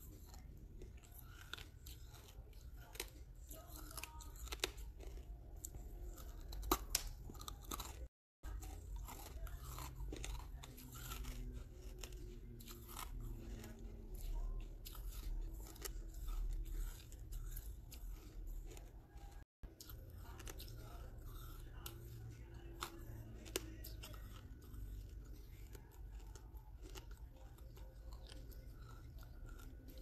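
Close-up chewing and crunching of pieces of red brick in a person's mouth: many sharp, crisp cracks over a low rumble. The sound cuts out briefly twice.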